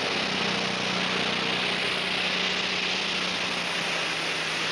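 Diesel super stock pulling tractor's turbocharged engine running at full throttle under load as it drags the weight sled. It is a steady sound: a constant low engine tone under a heavy rushing hiss.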